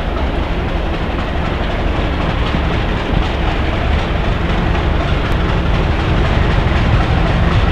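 Diesel locomotive hauling a passenger train, approaching with a steady low engine rumble that grows slowly louder.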